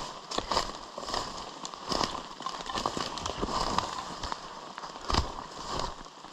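A hiker's footsteps and gear moving down a wet, rocky forest slope: irregular crackling taps and clicks over a steady hiss, with a heavier knock about five seconds in.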